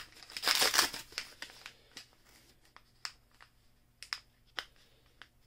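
Paper wrapping crinkling as fingers pick at and peel blue painter's tape off a wrapped part: a burst of rustling in the first second, then scattered small crackles and ticks.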